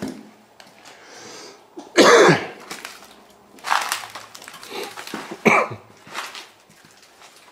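A person coughing several times, the loudest cough about two seconds in.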